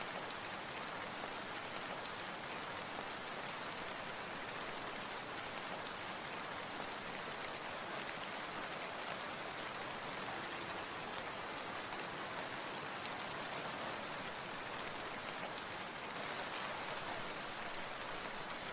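Steady rain falling: an even hiss of drops hitting a surface, with faint scattered ticks of individual drops and no letup.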